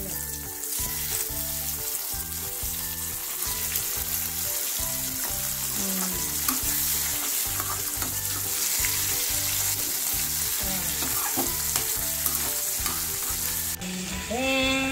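Chicken hearts sizzling in hot oil with fried onions in an iron kadai, stirred with a perforated steel spatula. The sizzle is steady and drops suddenly near the end.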